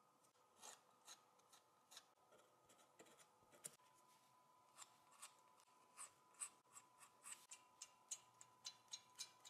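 Faint, irregular little clicks and crackles of masking tape and plugs being peeled off powder-coated projector parts by gloved fingers. A faint steady high hum sets in about four seconds in.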